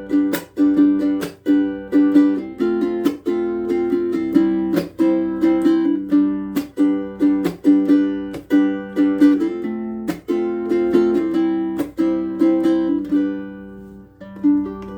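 Bruko short-scale baritone ukulele tuned to low-G gCEA with all-unwound PHD strings, played solo as a tune of plucked notes and chords, about two a second, with a brief thinning a little before the end. It has a bright, ukulele-like rather than guitar-like tone.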